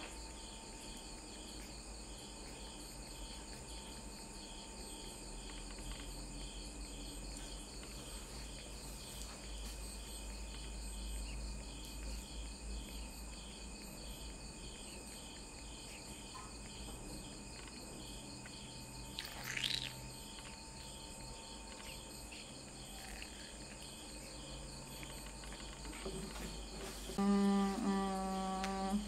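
Insects chirping in a steady, regular pulsing rhythm with a constant high whine beneath. Near the end a person hums on a held note.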